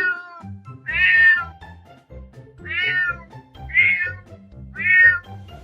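Cat meowing five times, about once a second, each meow a short call that drops in pitch at the end, over background music.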